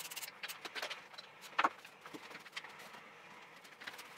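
Irregular clicks and metallic clinks of tools and parts being handled on a stripped-down motorcycle, with one louder knock about one and a half seconds in.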